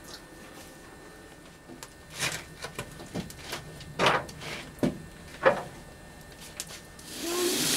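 Wood and coal fire in a steam locomotive's firebox crackling, with irregular sharp pops, the loudest in the middle. Near the end a steady steam hiss starts up.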